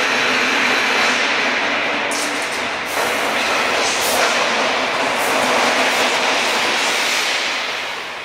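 Steel rebar rattling along the powered roller conveyor of a rebar threading line: a loud, steady metallic clatter with a few sharper clanks.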